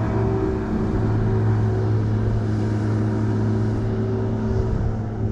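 A steady, low motor hum that holds one pitch throughout.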